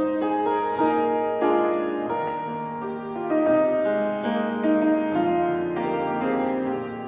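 Grand piano played live: a melody of single notes over held chords, in a large stone church.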